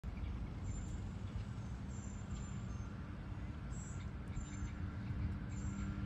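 Steady low outdoor rumble with a continuous low hum, and faint bird chirps now and then.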